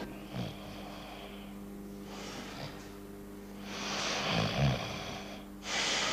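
A man breathing slowly and heavily while lying unconscious, about four loud breaths in and out, over a steady low electrical hum.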